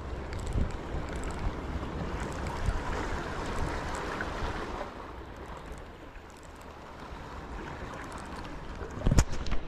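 Sea waves washing and wind on the microphone, a steady rushing that eases about five seconds in. A sharp thump near the end.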